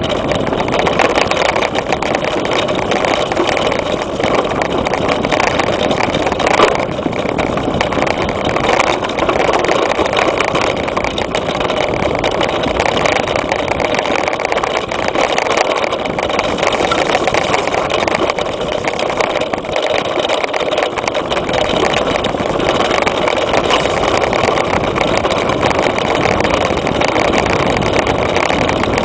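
Mountain bike riding fast along a dirt forest trail, heard through a camera mounted on its front suspension fork: a steady rush of wind and tyre noise with a constant rattle. There is one sharp knock about seven seconds in.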